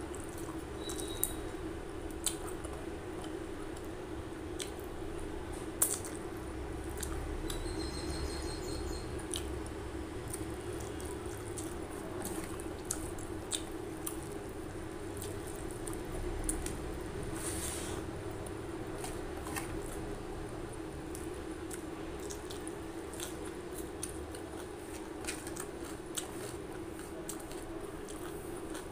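Rice and curry squished and mixed by hand on a stainless steel plate, with scattered small wet clicks and chewing sounds over a steady low hum.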